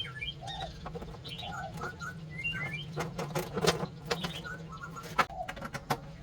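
Birds chirping with short repeated calls, over scattered clicks and light knocks and a steady low hum.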